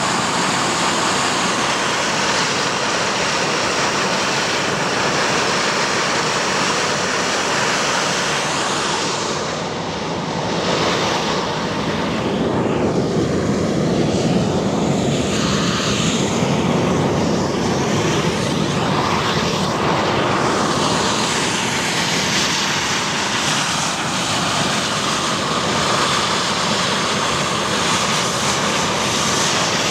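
Steam jetting from volcanic fumaroles: a loud, steady, rushing hiss.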